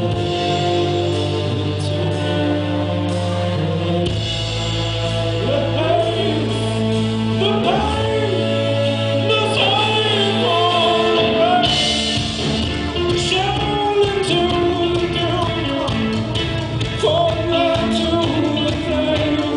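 Live rock band playing a song: a man singing over acoustic guitar, electric guitar, violin and drums.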